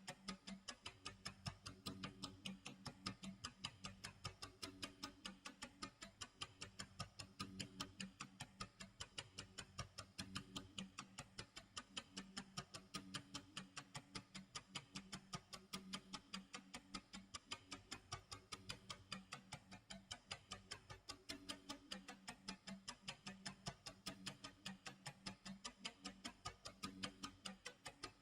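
Clock tick-tock sound effect: a steady, even run of ticks.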